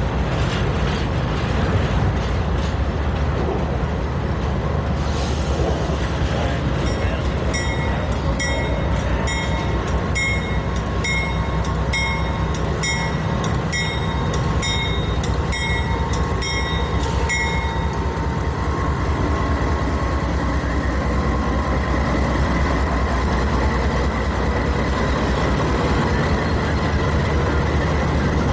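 Canadian Pacific GE diesel freight locomotives running as they roll slowly past close by, with a loud, steady low engine rumble. Through the middle of the passage, for about ten seconds, the locomotive bell rings steadily at about one and a half strokes a second.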